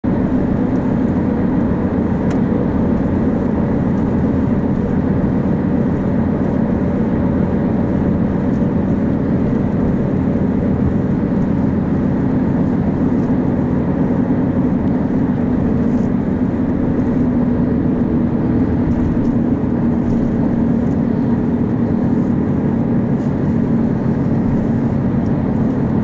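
Steady road and engine noise of a car driving, heard from inside the cabin: an even low rumble with a faint steady hum.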